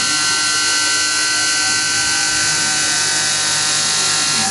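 Tormach PCNC 1100 CNC mill milling a round part under flood coolant: a steady spindle and cutter whine over a constant hiss of cutting and coolant spray.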